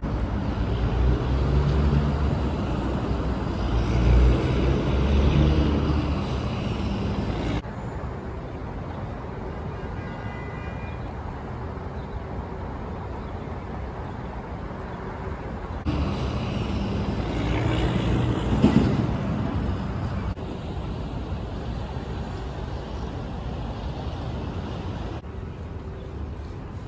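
City street traffic: vehicle engines and tyres in a continuous rumble, with louder passing vehicles over the first several seconds and again partway through, changing abruptly twice.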